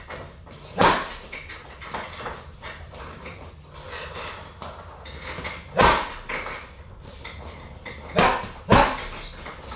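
Gloved punches striking a heavy punching bag, four hard hits standing out (one early, one near the middle and two close together near the end), with quieter taps and scuffs of footwork in between.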